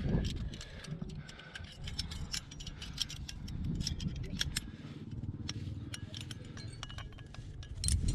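Aluminium carabiners and a quickdraw clinking and jangling as they are handled and clipped, many small sharp metallic clicks over a low rumble.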